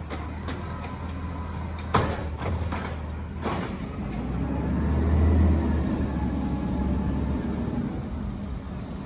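Natural-gas Peterbilt 320 garbage truck with an Amrep HX-450 automated side-loader arm running. Sharp knocks of the emptied recycling cart and the arm come about two to three and a half seconds in. Then the engine rises to a louder low rumble as the truck pulls away, easing off again near the end.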